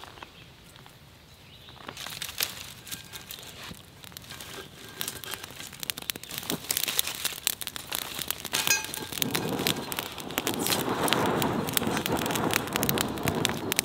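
Small campfire of dry twigs and wood shavings crackling and popping, the crackles growing denser and louder as the fire catches, with a rushing sound building over the last few seconds.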